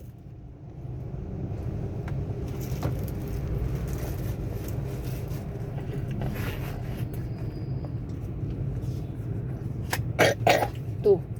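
A steady low rumble, then a small child coughs twice in quick succession near the end, on ice cream caught in the throat, followed by a brief vocal sound.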